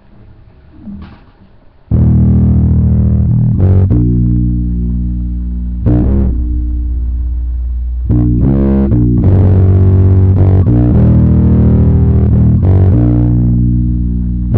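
Electric bass guitar played in long, held low notes. It comes in suddenly about two seconds in after a near-quiet start, and the note changes every second or two.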